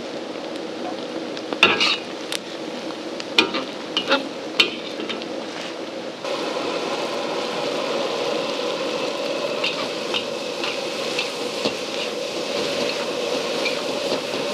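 Hot oil sizzling as pieces of fish fry, with a few sharp clicks. About six seconds in, it changes to a louder sizzle of a wok stir-fry, with a metal spatula scraping and tapping against the wok.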